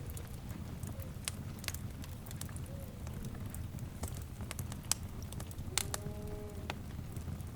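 Wood fire burning with a steady low rumble and scattered sharp crackles and pops. About six seconds in, a brief pitched call of several tones sounds over the fire.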